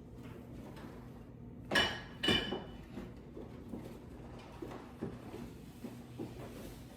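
Two sharp clinks of small hard plastic kit pieces knocked together, half a second apart, followed by faint scattered taps of handling.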